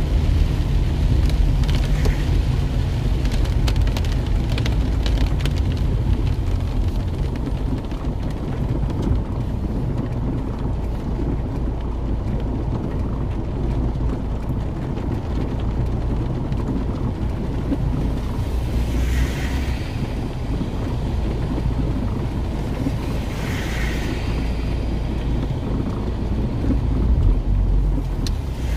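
Inside a car driving on a wet road in heavy rain: a steady low rumble of engine and tyres, with rain spattering on the windscreen and body, sharpest in the first few seconds. Two brief hissing swells come about two-thirds of the way through.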